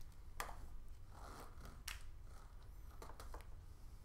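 Small handling noises from wires, connectors and plastic prop parts being moved about: a few sharp clicks and light rustles spread through, over a low steady hum.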